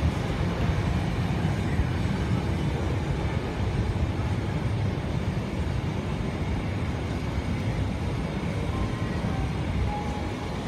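Freight train of empty flat wagons rolling past at a steady speed: a continuous low rumble of steel wheels on the rails.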